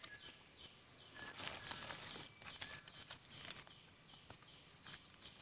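Faint scratching, rustling and small clicks of a knife trimming the stem of a freshly picked wild mushroom by hand, loudest from just over a second in to about halfway. A short high chirp repeats about twice a second behind it.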